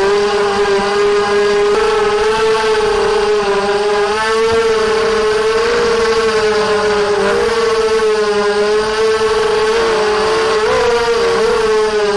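ZMR250 quadcopter's brushless motors and propellers whining steadily in flight, the pitch rising and falling several times as the throttle changes.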